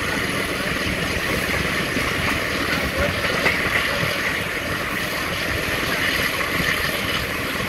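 Steady running noise of a passenger train at speed: wheels on the rails and rushing air, without a break.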